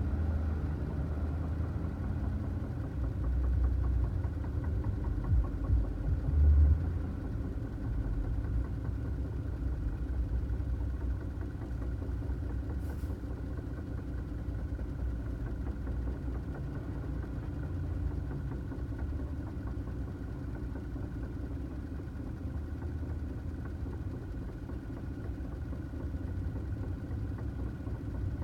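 2009 Toyota Tacoma running with a steady low rumble and a faint steady higher tone over it, with a few louder low thumps about five to seven seconds in.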